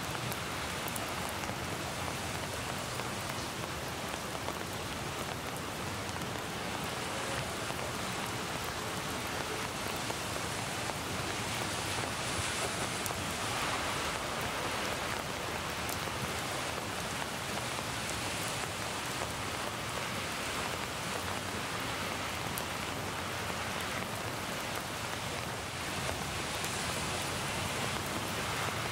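Steady rain falling, an even continuous hiss with scattered drop ticks; a field recording of the rain mixed with a rain sound effect.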